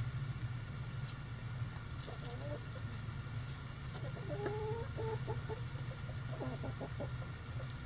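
Backyard chickens clucking in three short runs, about two, four and six and a half seconds in, over a steady low hum.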